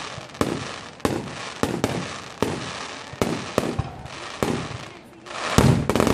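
Fireworks display: aerial shells bursting in a series of sharp bangs, roughly one or two a second, each trailing off in a low rumble. A denser, louder run of bangs and crackle comes near the end.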